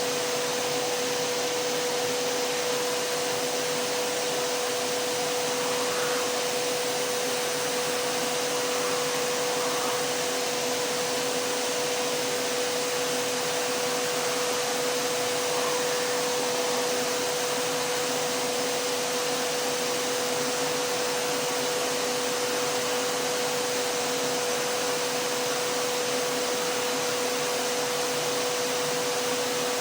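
Vacuum cleaner running steadily: an even rushing air noise with a constant humming whine through it, unchanging throughout.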